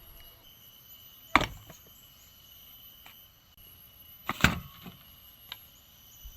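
Two sharp knocks about three seconds apart, followed by a few lighter clicks, over a steady high-pitched drone of insects.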